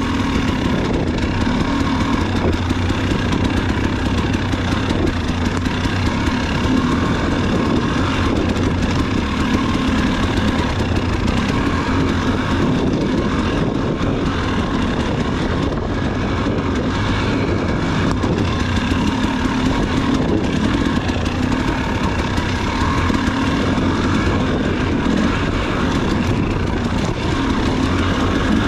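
Off-road dirt bike engine running under way, its pitch holding fairly steady.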